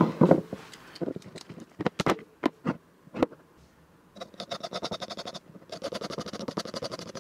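Knocks and clicks of a cast resin blank being handled on a wooden workbench, then two bursts of rapid buzzy sputtering as glue is squeezed out of plastic bottle nozzles onto the blank.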